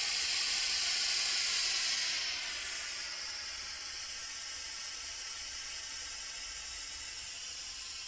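White noise hissing steadily from a phone speaker, picked up by a Synco Mic-D2 shotgun microphone. About two to three seconds in it gets quieter and duller as the phone is moved off the microphone's axis: the mic's off-axis rejection.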